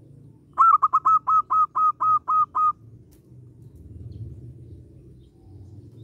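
Zebra dove (perkutut) calling: a quick run of about ten short cooing notes, roughly five a second, lasting about two seconds, starting about half a second in.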